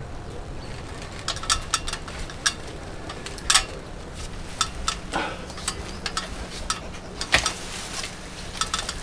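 Olive tree being pruned: irregular sharp snips and snaps of small branches being cut and broken off, with a brief rustle of leaves about five seconds in. A low wind rumble on the microphone runs underneath.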